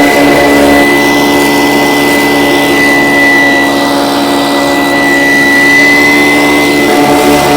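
Motor-driven vacuum running steadily while sucking gravel out of bedrock cracks: a steady engine note with a high whine over it.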